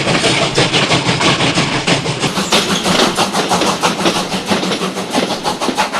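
Steam train running, with a fast, even beat of about five strokes a second over a steady hiss, gradually getting quieter.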